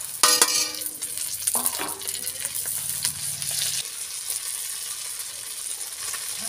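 Freshly ground masala paste sizzling in hot oil and onions in a kadhai, stirred with a metal spatula that scrapes and clinks against the pan. A loud ringing scrape comes in the first second.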